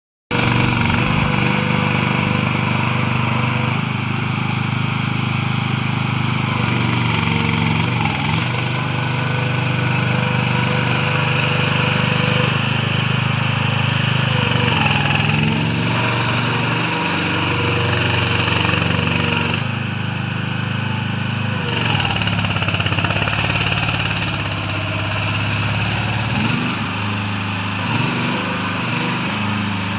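Small engine of a portable concrete mixer trailer running steadily under load, its pitch and tone shifting abruptly several times.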